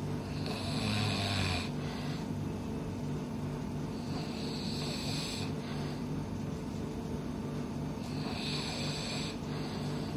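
A person snoring heavily, likened to a pig, with a snore about every four seconds: three in all.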